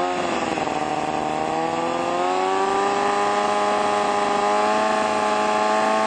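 Kawasaki Ninja ZX-6R 636's inline-four engine through an M4 GP slip-on exhaust with its standard baffle, held at a steady high rev of about 6,700 rpm just after being revved up from idle, the pitch settling and then creeping slightly higher. A stationary noise test: the exhaust reads about 117 decibels, too loud for the street.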